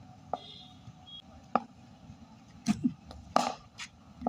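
A series of sharp knocks during cricket net practice, the crispest about a second and a half in, typical of a cricket bat striking the ball, followed by a double knock and a short rattling clatter a little after three seconds.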